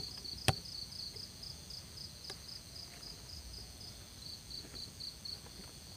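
Insects chirping: a high, rhythmic chirp of about four pulses a second that stops about five seconds in, over a steady high insect drone. One sharp click sounds about half a second in.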